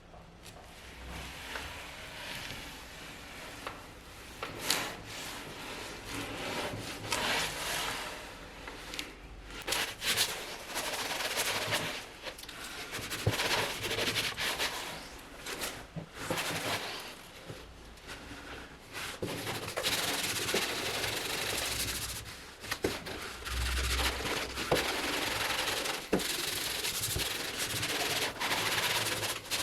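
Abrasive rubbing, like sandpaper worked by hand over a surface, in uneven strokes with a few sharp clicks. It grows louder and more continuous about two-thirds of the way through.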